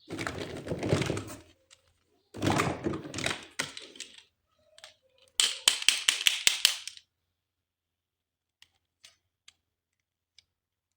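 Plastic toys and packaging being handled: two spells of rustling, then a quick run of sharp plastic clicks, and a few faint taps near the end.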